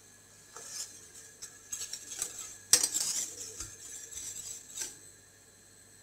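Wire whisk stirring a thick tomato paste mixture in a stainless steel pot, its wires clinking and scraping against the metal sides. The sharpest knock comes a little before halfway, and the clinking stops about five seconds in.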